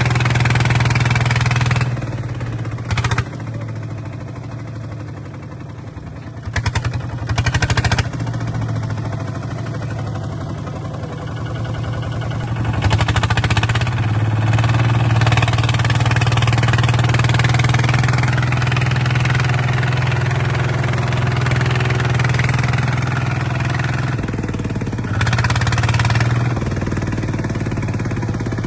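Small bulldozer's engine running steadily, its note easing off and picking up again with several short louder surges as the machine works.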